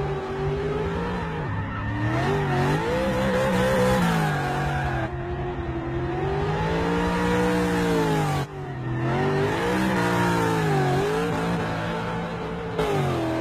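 Limousine engine revved hard while driven at speed in reverse, its note rising and falling repeatedly, with tyres squealing through the drift. The engine note drops away briefly about eight seconds in, then climbs again.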